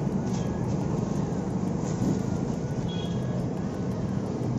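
Gas burner of a street-stall frying stove running under a kadhai of hot oil, a steady low rushing noise.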